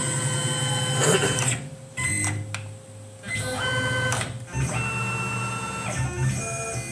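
Tormach PCNC 1100 CNC mill's axis motors whining as the table and head are jogged into position from the jog pendant. Several short moves start and stop, each at its own steady pitch.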